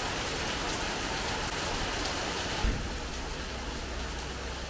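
Heavy rain pouring steadily, a downpour hitting the garden and roofs. A little over halfway in there is a brief low thump, after which the rain sounds somewhat quieter.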